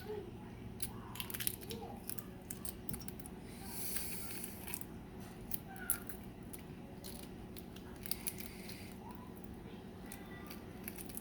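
Small sharp clicks and soft crackles of a balut egg being picked at by hand, shell bits and membrane pulled away, over a faint steady hum.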